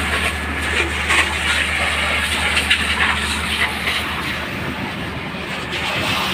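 Fire engine running with a steady low drone under a noisy hiss; the drone drops away about four seconds in.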